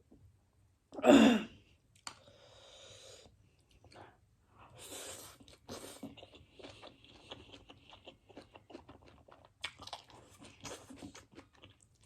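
Close-up eating sounds of spicy Korean instant noodles with egg and sausage: wet chewing with many small clicks. One short loud noisy burst about a second in stands out above the rest.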